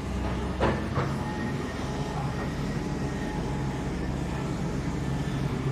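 Heavy equipment engine running steadily at a low hum, with two sharp knocks about half a second and a second in.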